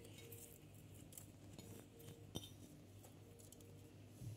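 Near silence: room tone with a low steady hum and a few faint light clicks of kitchenware being handled.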